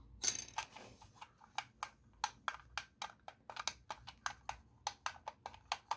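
Quick, irregular small plastic clicks from handling a cheap handheld radio-control transmitter, several a second.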